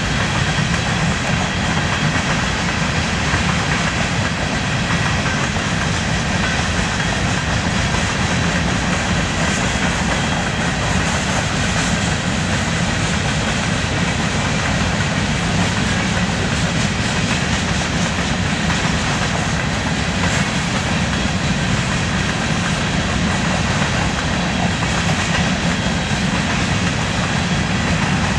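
Covered hopper cars of a BNSF unit grain train rolling past, a steady noise of steel wheels on the rails with no break or change.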